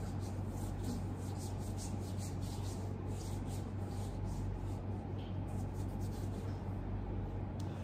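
Cream being rubbed into the back of a hand, skin on skin: soft swishing strokes about two or three a second that thin out after about five seconds. A steady low hum runs underneath.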